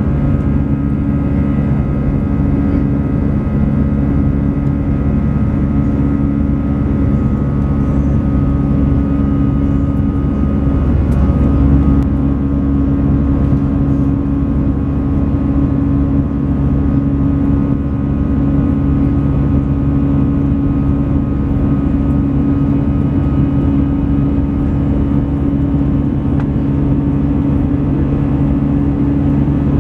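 Airbus A320 cabin noise in flight: the jet engines and airflow make a steady drone with several held tones under a low rumble. About eleven seconds in the tones shift and the sound briefly swells, as with a change in engine thrust.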